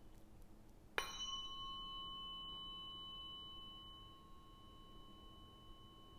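A tuning fork, used for Biofield Tuning, struck about a second in with a sharp hit, then ringing with a steady, clear tone that slowly fades.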